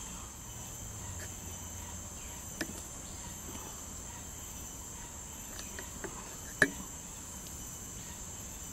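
Steady, high-pitched chorus of insects, typical of crickets or cicadas in tropical forest, with a few sharp clicks, the loudest about six and a half seconds in.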